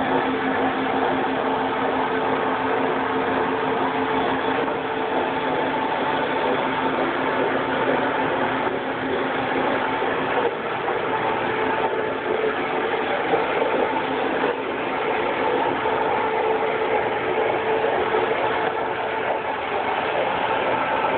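Rotary carpet extractor (DriMaster rotary extraction tool) working wet carpet under vacuum: a steady, loud rush of suction through the hose with a constant mechanical hum underneath.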